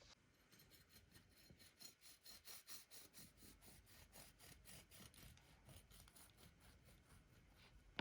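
Faint, quick rasping strokes, about five a second, of a kitchen utensil scraping or cutting through food, thinning out over the last couple of seconds.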